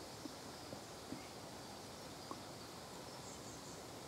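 Faint, high chirps of small birds over a steady background hiss, with a few soft taps in the first couple of seconds.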